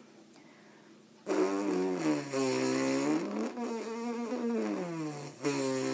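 Lip buzz through a brass mouthpiece visualizer, a bare rim with no cup, starting about a second in. The low buzzing tone sags in pitch, jumps up, holds, then drops again as the player aims the air stream up and down: aiming up lowers the pitch and aiming down raises it.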